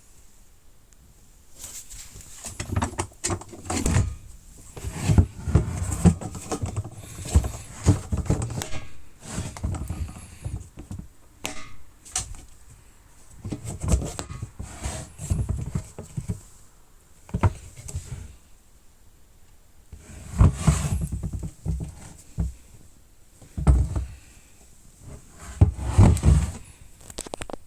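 A hard plastic tool case being handled: clusters of knocks, clicks and thuds, with some scraping, separated by quiet pauses.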